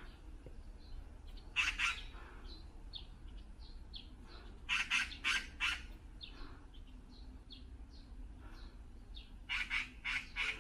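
Birds calling: three runs of loud, harsh calls, two to four calls in each run, with short faint chirps between them.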